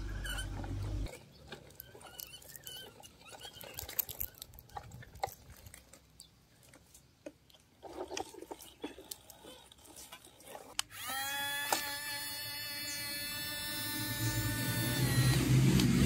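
A low rumble that stops about a second in, then faint clicks and scrapes of plastic toys on dry dirt and gravel. About eleven seconds in, a steady high electric motor whine with several overtones starts and runs for about four seconds as the toy remote-control excavator moves its arm. Near the end a low engine-like rumble rises.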